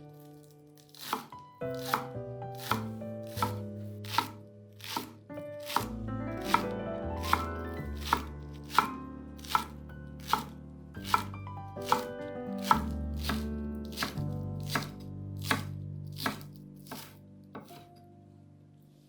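Knife chopping on a cutting board in a steady rhythm, about one cut every three-quarters of a second, over background music.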